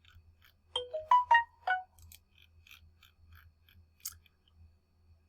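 A short electronic chime: about five quick pitched notes climbing and then dropping back, about a second in. Faint scattered clicks follow, with one sharper click about four seconds in.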